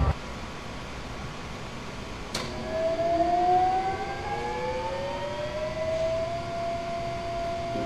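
A sharp click, then a whine that glides upward for about four seconds and settles into a steady tone: a laboratory high-field electromagnet being ramped up.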